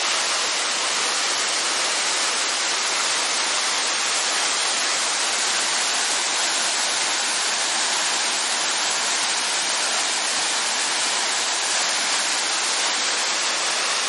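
Mountain waterfall in full flow after rain, heard close up from the foot of the falls: a steady, loud rush of falling water that does not change.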